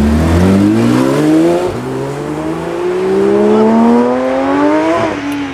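A car accelerating hard, its engine revving up through the gears: the pitch climbs, drops at an upshift about a second and a half in, then climbs longer through the next gear to another upshift near the end.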